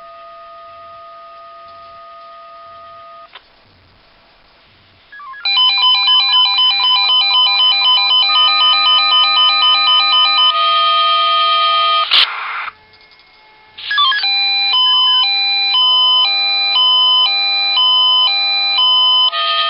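Swissphone Quattro 96 radio pager sounding its test-alarm alert. A steady two-note tone lasts about three seconds. After a short gap come electronic melodies of rapidly alternating beeping notes, with a louder dense burst of tones around eleven to twelve seconds in, followed by another alternating beep melody.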